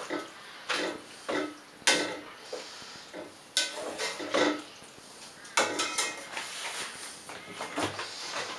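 A utensil stirring in an enamelled cooking pot, clinking and scraping against the pot's sides and bottom. The clinks come irregularly, roughly every half second, and some ring briefly. There is a short lull about halfway through.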